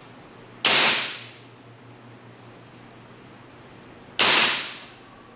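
WE HK416 open-bolt gas blowback airsoft rifle on green gas firing two single shots about three and a half seconds apart, each a sharp report that fades over about half a second.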